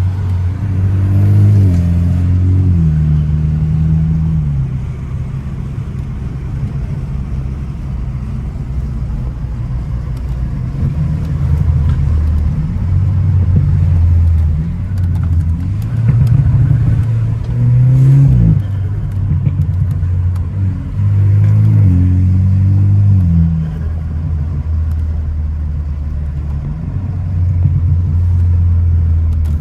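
Car engine pulling hard on a winding road, rising in pitch and dropping back several times as it shifts through the gears and lifts off, with a sharp drop in pitch near the middle.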